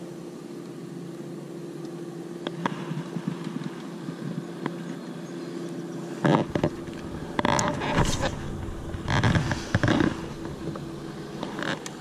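A boat motor hums steadily at one pitch. From about halfway, gusts of wind buffet the microphone with loud, irregular rumbling.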